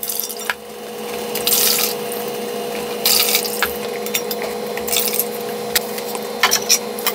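Chicken stock poured from a cup through a fine-mesh strainer into a stainless steel bowl: liquid splashing in several bursts, with a few sharp clinks of cookware near the end.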